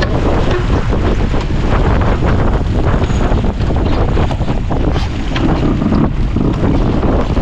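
Wind buffeting the microphone of an onboard camera on a Farr 280 sportsboat, with sea water rushing along the hull; a loud, steady noise heaviest in the low end.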